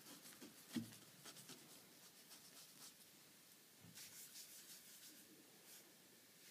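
Faint scratchy strokes of a paintbrush on canvas, coming in short runs of quick dabs, with one soft knock a little before a second in.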